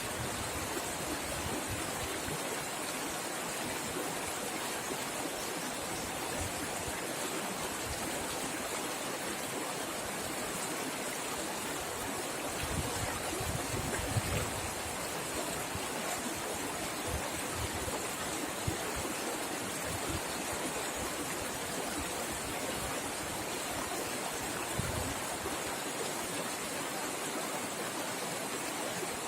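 River water flowing fast and splashing, a steady full rushing with small low gurgles here and there.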